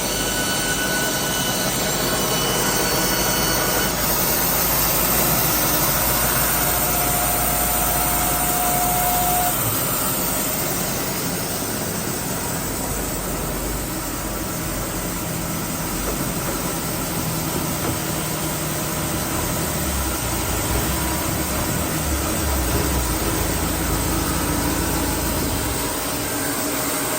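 Baker band sawmill running steadily as it saws through a cant: a continuous machine noise with a low engine hum underneath.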